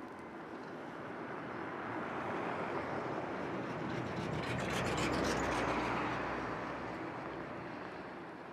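A coach bus driving past close by on a snow-covered road: engine and tyre noise swell, peak about five seconds in, then fade away.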